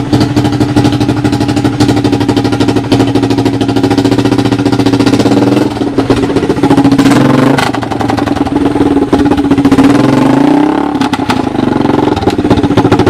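Single-cylinder four-stroke engine from a 1986 Honda TRX200SX ATV, fitted with a makeshift muffler, running loud and steady under way in a converted EZGO golf cart. Its speed dips briefly about halfway through, then sinks and picks back up near the end as the throttle eases and comes on again.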